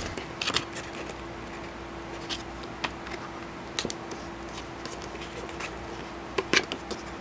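Paper rustling and short flicks as the glossy pages of a children's picture book are handled and turned and a paper flap is lifted, the sharpest flicks about half a second in and near the end, over a faint steady hum.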